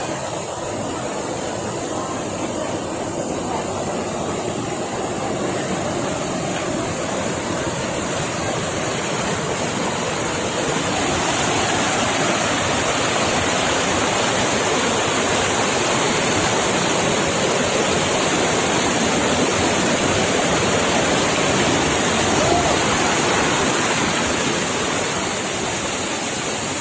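Waterfall: a steady rush of falling water, growing a little louder about eleven seconds in.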